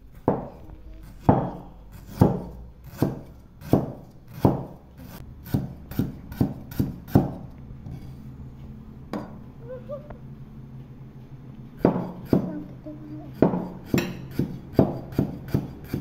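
Cleaver chopping lemongrass root on a wooden chopping board: a run of irregular sharp knocks, a pause with a single knock, then another run of chops near the end. A faint steady low hum lies underneath.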